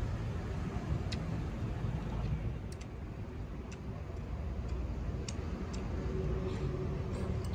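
Eating utensils tapping and clicking against a bowl of noodle soup during a meal, a sharp click every second or so, over a steady low rumble.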